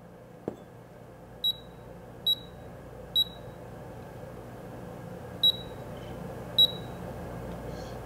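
Small digital scale beeping as its buttons are pressed: five short, high beeps. Three come about a second apart, then two more a few seconds later.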